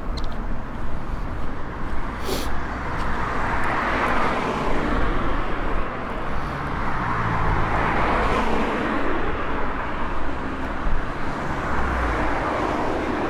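Road traffic: cars passing close by, their tyre and engine noise swelling about four seconds in and again about eight seconds in, over a steady low rumble.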